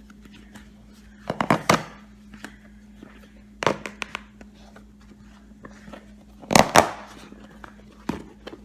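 The inner layers of an American football being torn and cut apart by hand: four short, sharp ripping bursts, the loudest about two-thirds of the way in.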